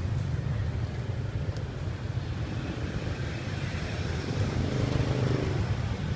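Steady low rumble of street traffic and engines, with an engine note swelling briefly about four seconds in.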